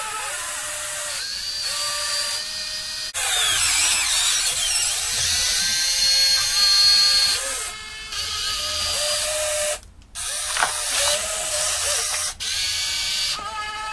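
Motors and gears of a 1:14 scale RC excavator whining as the arm and bucket dig dirt and swing over to load a trailer, the whine gliding up and down in pitch as each movement starts and stops. The sound breaks off abruptly a few times.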